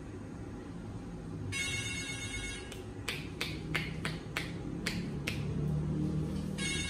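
About seven sharp hand claps, roughly three a second, from a masseuse's palms held together in a percussive clapping massage stroke. A short ringing tone sounds before and after the claps.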